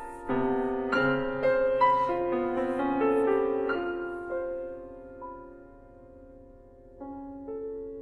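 Grand piano playing contemporary concert music: a busy passage of struck chords and notes that thins out after about four seconds and dies away into a soft held chord, with a new chord struck about seven seconds in.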